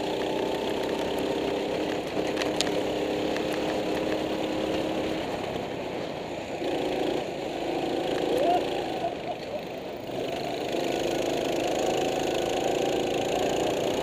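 Go-kart engine running at speed, heard from onboard the kart. Its note drops back and weakens around the middle, then picks up again about ten seconds in.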